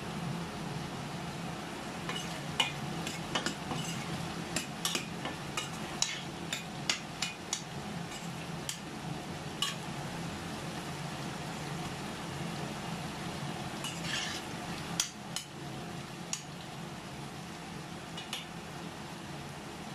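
Metal spoon stirring tuna and vegetables in a stainless steel pan, clinking and scraping against the pan in irregular clusters, busiest from about two to ten seconds in and again around fourteen to sixteen seconds. A steady low hum runs underneath.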